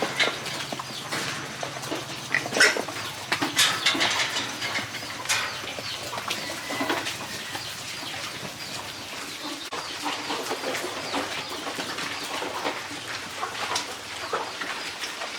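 Farm animals calling, with scattered sharp knocks and clatter.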